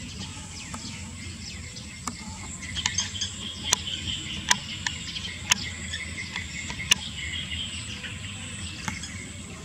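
Outdoor insect sound: a steady high drone, with a spell of busier chirping in the middle and four or so sharp clicks between about three and seven seconds in.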